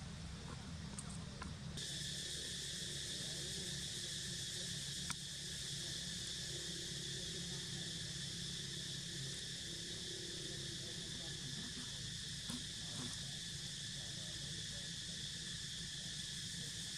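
Steady chorus of insects, a continuous shrill drone holding at a few fixed pitches, which comes in about two seconds in and holds on.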